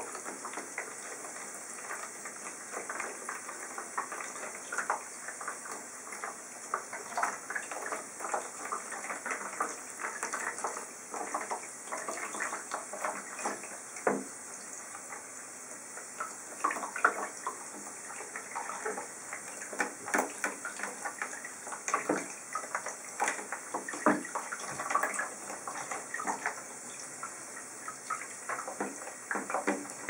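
Water splashing and sloshing in a plastic tub as a pigeon is rinsed by hand: irregular small splashes throughout, over a steady hiss.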